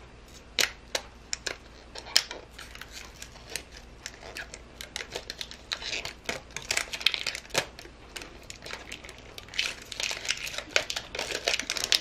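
Hard plastic of a Zuru 5 Surprise capsule ball and its clingy plastic wrapper being handled: a run of sharp clicks and taps, with stretches of crinkling wrapper in the second half.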